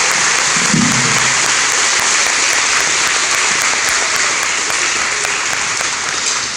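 A large crowd applauding in a hall, sustained clapping with a brief shout about a second in.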